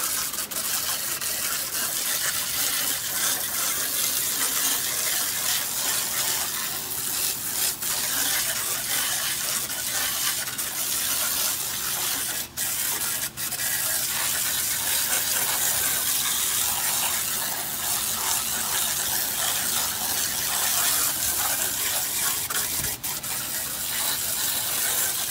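Pressure washer jet hissing steadily against weathered wooden fence boards, blasting off the gray surface wood fibers after a cleaner has been applied. The spray cuts out briefly twice, about twelve and a half and thirteen seconds in, and again near twenty-three seconds.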